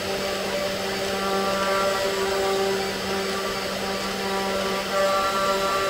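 Genmitsu 4040 Pro CNC router's 500 W spindle running with a cheap 60-degree V-bit carving letters into plywood: a steady whine over the hiss of cutting, its higher tones growing louder about five seconds in. The noise comes from the cutter, not machine vibration: the bit has only one real cutting face, the other sitting well off.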